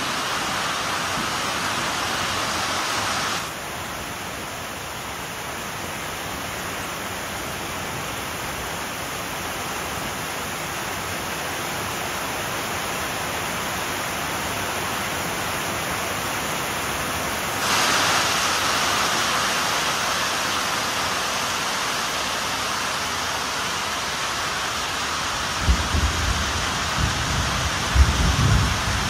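Heavy rain pouring down, a steady hiss of rain on the ground and trees. It turns quieter and duller a few seconds in and comes back fuller about halfway through. A few low thumps sound near the end.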